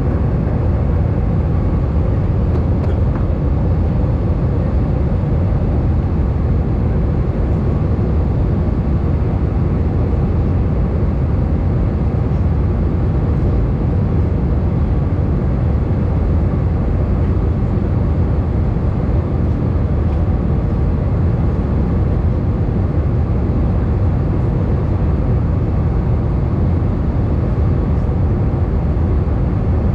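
Steady, even drone of an Airbus A320's jet engines and rushing airflow heard inside the passenger cabin in flight, deep and heavy with a faint steady hum over it.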